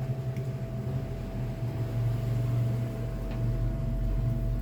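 Hot-air rework station's blower running steadily: a constant low hum with a thin steady whine above it.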